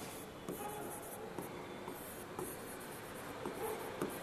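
Stylus writing on the glass of an interactive smart-board screen: a string of quiet, short scratching strokes as a word is written.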